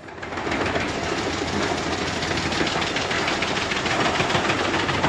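Albach Diamant 2000 mobile wood chipper running, a steady dense rattling clatter.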